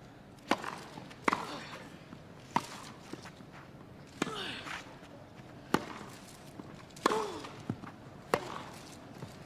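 Tennis ball struck with rackets in a rally: a serve about half a second in, then six more sharp hits, roughly one every one and a half seconds.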